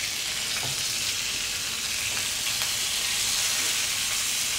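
Marinated chicken tikka pieces frying in hot oil in a pan, a steady sizzle. The chicken is nearly cooked through and is browning.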